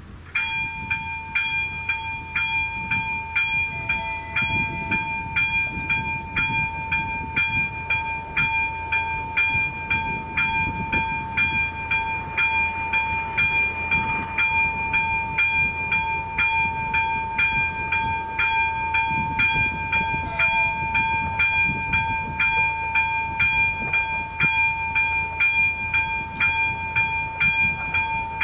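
Czech level crossing warning bell ringing in regular strokes, about one and a half a second, over a steady tone, switching on just as the crossing's red lights start flashing: the warning that a train is approaching.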